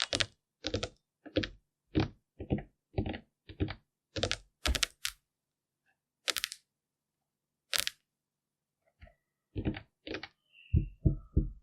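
A series of sharp taps and clicks from small hard objects being handled, about two a second at first, then more spaced out, ending in four quick, deeper knocks.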